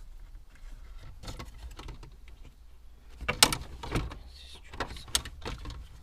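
A plastic dashboard trim panel of a Toyota Auris being worked loose by hand: a series of sharp plastic clicks and knocks, with the loudest cluster about three and a half seconds in.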